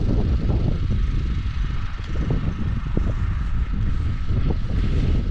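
Wind buffeting the microphone: a steady low rumble with a few light knocks.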